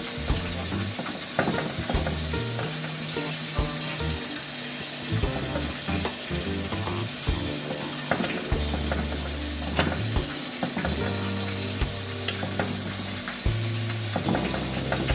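A metal fork turning and fluffing cooked rice and red kidney beans in a metal pot, with many short clicks and scrapes against the pot, over a steady hiss from the pot on low heat. Background music with low bass notes plays underneath.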